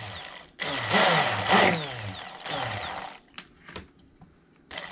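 Stick blender pulsed on and off in a small batch of soap oils, mixing in green mica. It whirs in short bursts, its pitch falling each time it lets off, pauses for about a second with a couple of light clicks, and starts again near the end.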